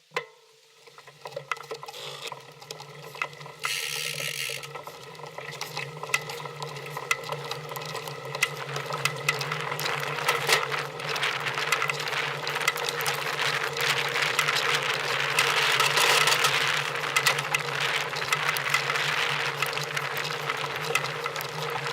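A small machine starts up and runs with a steady hum and a fast, dense clicking rattle, growing louder over the first ten seconds or so.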